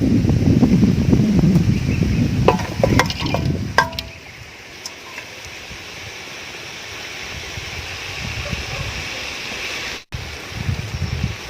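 Quail pieces being added to a pan of frying masala and stirred: a jumbled clatter with several sharp metal spoon-on-pan clinks in the first few seconds, then a steady sizzle. The sound cuts out for a moment near the end.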